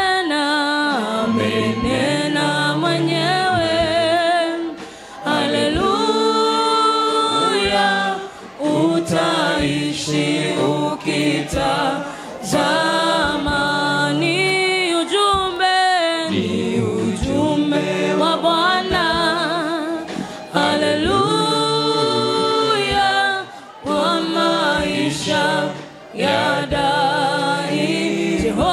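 Voices singing a gospel worship song, in sung phrases a few seconds long with short breaks between them.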